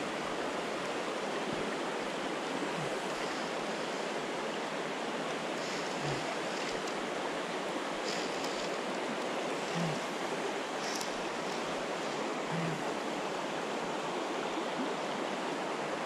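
Shallow creek water running steadily over stones in a riffle, heard close up at the surface.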